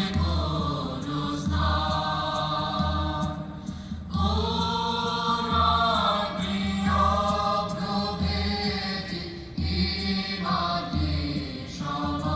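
A group of voices singing a chant-like song in unison, in long held phrases, over a steady low drum beat about once a second.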